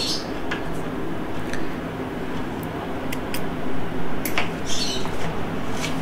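A spool of sewing thread being handled and thread pulled off it, giving short rustles and light clicks over a steady low hum.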